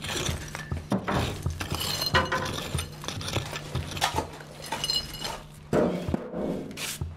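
Rubble and broken ceramic pieces knocking and clinking as they are dug out and shifted by hand, a run of short irregular knocks.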